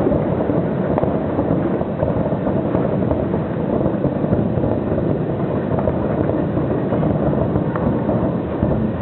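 Dense, unbroken rumble and crackle of a distant New Year firework display, with a few sharper bangs standing out.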